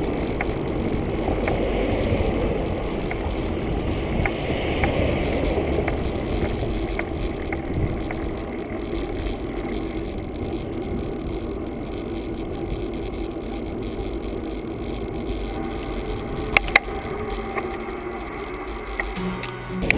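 Steady wind and road noise from an action camera on a bicycle rolling along paved road, with two sharp clicks about three seconds before the end.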